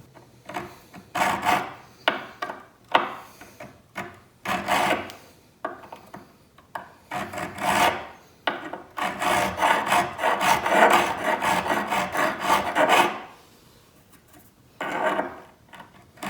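Hand file rasping back and forth on the dovetail head of a MicroJig Matchfit clamp, taking away material so it fits a track saw track. It starts as separate strokes, turns into steady filing for a few seconds, pauses, and starts again near the end.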